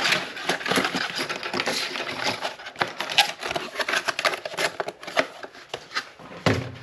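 Packaging being handled as a kit box is unpacked: rustling and crackling wrappers with small parts clicking and clattering, in a dense, irregular run.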